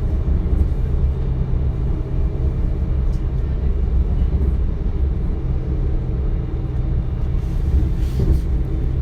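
A DB Class 425 electric multiple unit running along, heard from inside the carriage: a steady low rumble with an even hum.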